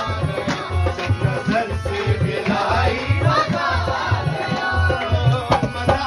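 Live folk singing accompanied by a hand drum beating a steady rhythm.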